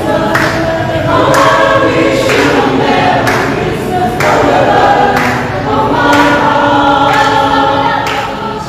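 Mixed choir of men's and women's voices singing a Christmas carol in harmony, holding notes and moving through the melody.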